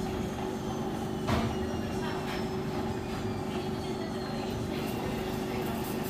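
Beko washing machine running its wash cycle: a steady motor hum and drum rumble. There is a sharp knock a little over a second in and a few fainter knocks after it.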